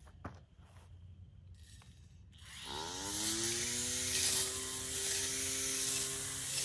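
Battery-powered weed eater fitted with a cutting blade: after a couple of light clicks, about two and a half seconds in its electric motor spins up with a quickly rising whine and settles into a steady, much louder running whine with a hiss over it.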